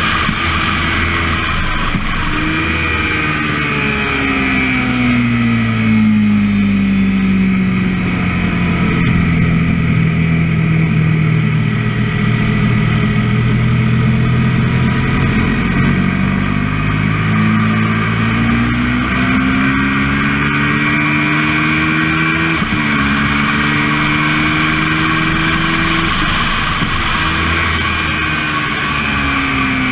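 Kawasaki Ninja 650R's parallel-twin engine lapping a race track. Its note falls for about ten seconds as the bike brakes from about 120 mph down to corner speed, holds low through the slow corner, then climbs again under acceleration, dropping sharply at an upshift about two-thirds of the way through. Heavy wind rush runs underneath.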